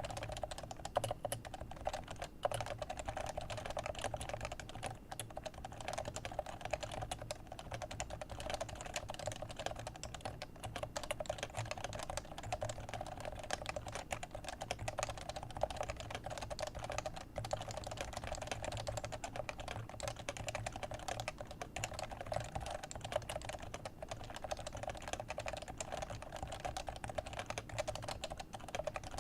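Continuous fast typing on a Leopold FC660c keyboard with Topre 45g electrocapacitive switches: a dense, unbroken stream of soft keystrokes.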